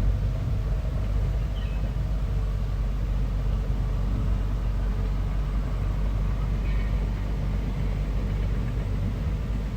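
Bulldozer's engine running steadily with a low rumble.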